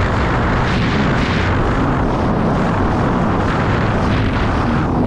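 Sea-Doo Spark Trixx personal watercraft running at speed over choppy water, its Rotax three-cylinder engine and jet low under loud wind buffeting on the microphone and the rush of hull spray.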